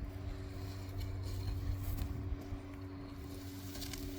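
A digging tool working into hard garden soil, with a few faint scrapes, over a steady low rumble and a constant hum.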